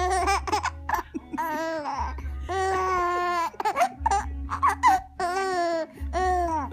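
A three-month-old baby girl laughing in about five high-pitched, drawn-out bursts with short pauses between them.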